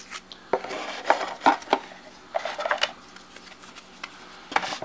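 Stacks of game cards being handled and set into a cardboard storage box: a string of short taps and clicks of card stock against card stock and cardboard.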